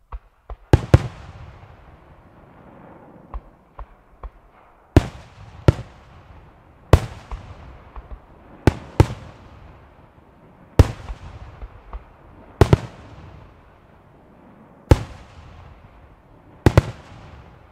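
Aerial fireworks display: shells going off with loud sharp bangs, often two in quick succession, about every two seconds, each trailing off in a rolling echo. A few smaller pops come about three to four seconds in.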